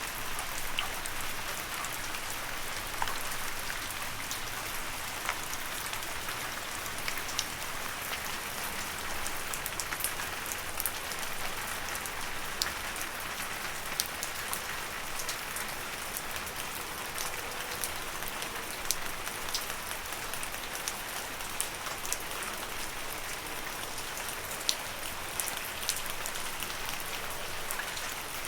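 Steady rain falling, a continuous hiss with many distinct drops pattering on leaves close by.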